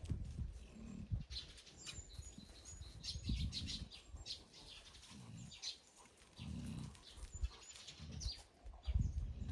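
Dogs play-fighting, with a series of short low growls and some scuffling, and short high chirps about one to four seconds in.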